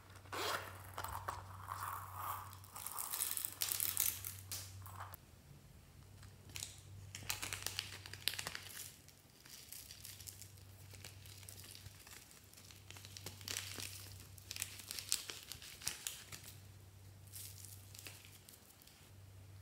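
Fingers rustling and crackling through loose polystyrene foam beads and plastic slime toppings in a glass tray, in irregular bursts, over a faint low hum.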